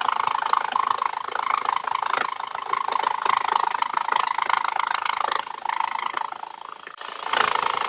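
Jigsaw fitted with a metal-cutting blade and mounted upside down as a table saw, running and cutting thin sheet metal with a steady buzz. The cut eases off from about five and a half to seven seconds in, then picks up again.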